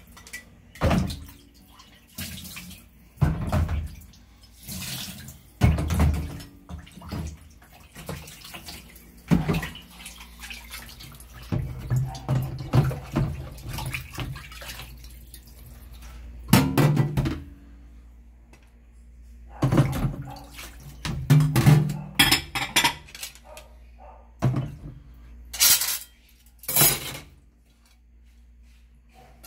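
Kitchen sink sounds in irregular bursts: a tap running on and off, and clatter of a plastic colander and dishes as raw beef chunks are handled.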